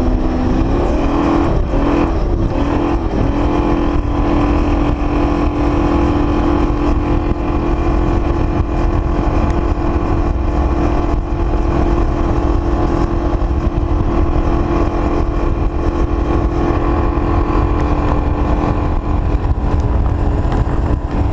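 Speedboat engine running hard at speed with a steady note, which wavers and settles slightly higher about two to three seconds in, over a heavy rush of wind on the microphone.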